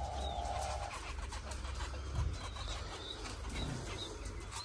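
Small cage birds, zebra finches and budgerigars, chirping in an aviary: short high chirps come several times, over a low background rumble.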